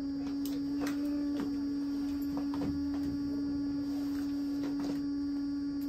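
A steady low electrical hum at one constant pitch, with a few faint clicks scattered through it.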